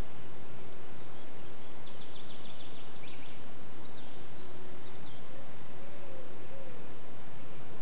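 Outdoor nature ambience: a steady, even rushing background with a short, rapid bird trill about two seconds in, a few fainter calls just after, and faint low wavering calls near the end.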